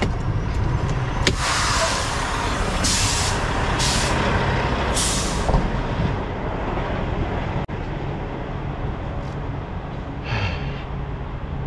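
A 2000 Freightliner FLD semi-truck's diesel engine running steadily, with bursts of air hissing from its air brake system: a long hiss about a second in, three short ones soon after, and another near the end.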